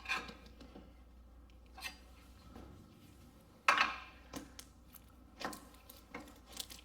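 Metal clinks and knocks as a pry bar and a bolt are worked against a car's lower control arm and subframe to line up the front bolt. There are about half a dozen separate strikes, the loudest about four seconds in.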